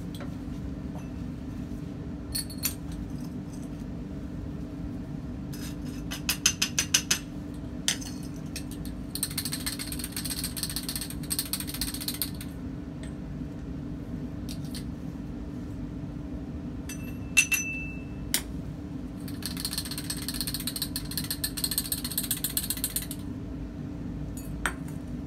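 Glassware handling: a glass test tube and funnel clicking and clinking, with two stretches of fine rattling and scraping as solid crystals are tipped through the funnel into a dry test tube. One bright glass clink rings briefly about 17 seconds in. A steady low hum runs underneath.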